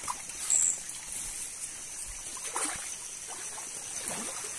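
Shallow forest stream trickling steadily over rocks, a low even wash of water with a few faint soft knocks.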